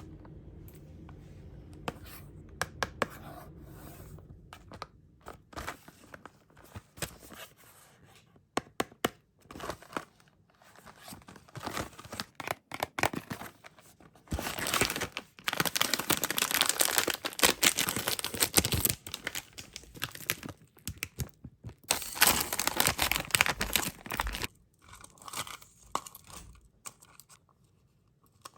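Plastic candy packaging being handled, crinkled and torn open, with scattered clicks and taps. The crinkling grows dense and loud about halfway through for around ten seconds, then thins out.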